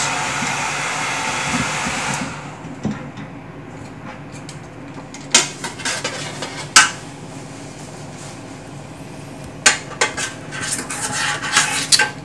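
A steady hiss cuts off about two seconds in, followed by scattered sharp metallic clinks and knocks of tools and faucet parts being handled at a stainless steel sink.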